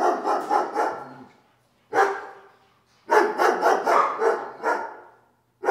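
Dogs barking in quick runs of several barks a second, with short pauses between the runs and one lone bark about two seconds in.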